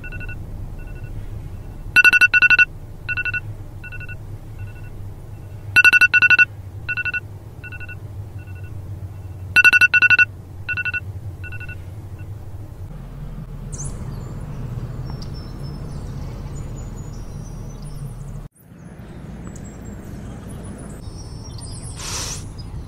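Mobile phone alarm beeping: a two-pitch electronic tone in loud double beeps about every four seconds, with fainter single beeps between, stopping after about twelve seconds. A low steady hum follows.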